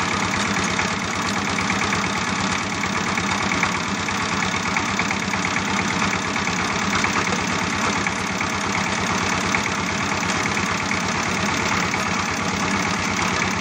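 Small battery-powered DC motor of a homemade toy tractor running steadily, a fast, even ticking whir.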